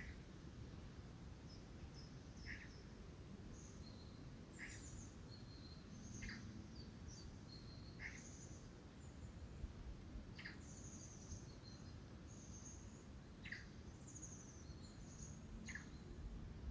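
Faint outdoor ambience: small birds chirping, with short high calls recurring every second or two over a steady low rumble.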